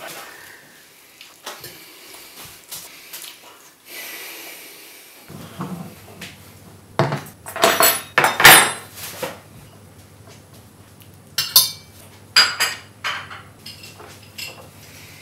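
China plates and cutlery clattering on a wooden table as plates are set down and swapped: a cluster of loud knocks and clinks midway, then lighter clinks of a knife and fork against the plate.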